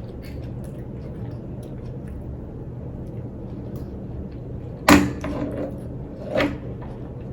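Quiet chewing of a burger over a steady low hum, with a sharp knock about five seconds in and a smaller one about a second and a half later.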